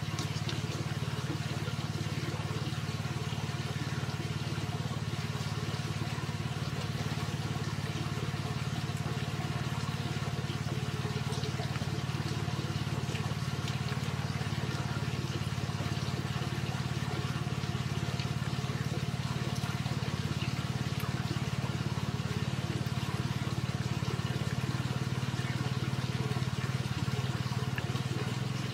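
A steady low mechanical hum, unchanging in pitch and level.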